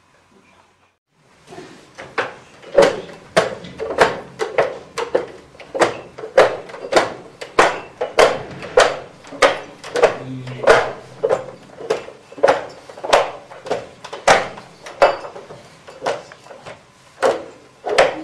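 Glass bottles being riddled by hand in wooden riddling racks (pupitres): each bottle is gripped, given a quick turn and dropped back into its hole with a sharp clack. The clacks start about a second in and repeat at roughly two a second.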